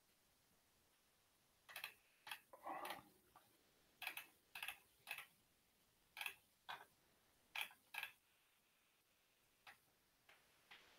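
Faint, irregular clicks of a computer keyboard and mouse, about a dozen over several seconds, most of them in the middle of the stretch.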